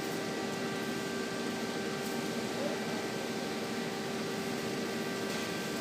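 Steady machine hum with an even hiss, several constant tones holding without change.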